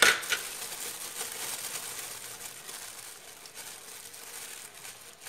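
Thin clear plastic bag crinkling and rustling as a banana is pressed and worked inside it, with a sharp loud rustle at the start and then steady crinkling that thins out near the end.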